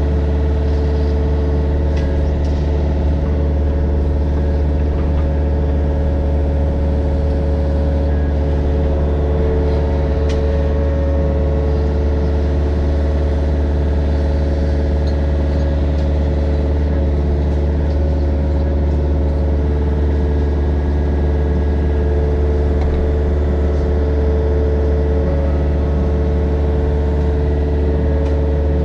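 Mini excavator's diesel engine running steadily at a constant speed, a loud even drone with no revving up or down.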